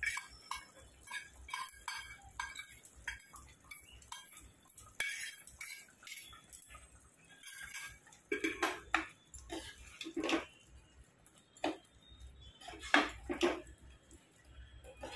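A spoon tapping and scraping a small metal bowl in quick, even strokes as wet spice masala is emptied from it. Then a steel ladle scrapes and stirs thick masala in a pressure cooker, in longer strokes that are loudest near the end.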